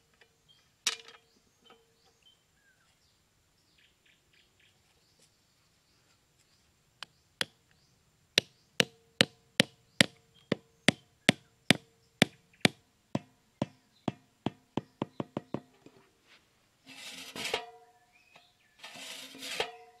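A bamboo stake being hammered into sandy ground: a long run of sharp knocks, about two or three a second at first and quickening to nearly four a second. Near the end comes a few seconds of scraping as the tin can is pushed over the sand.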